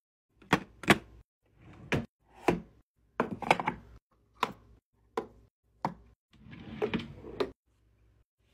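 Makeup products and small containers being set down and tapped into place on a vanity shelf and in drawers: a string of about a dozen short, sharp clicks and clatters with brief pauses between them, a couple of them in quick pairs.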